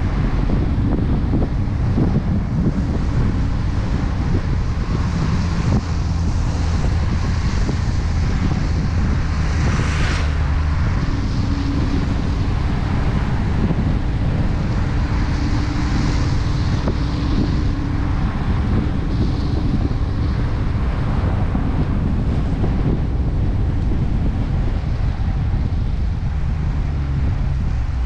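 Dodge Challenger R/T's 5.7 HEMI V8 cruising steadily at low speed, a low engine rumble mixed with tyre hiss on a wet road and wind buffeting the microphone.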